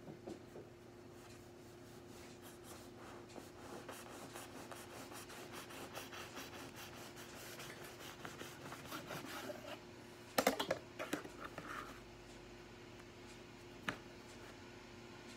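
Knife sawing through the crust and soft crumb of a chocolate bread loaf, a quick run of scratchy back-and-forth strokes, followed about ten seconds in by a brief clatter of louder knocks and one more knock near the end.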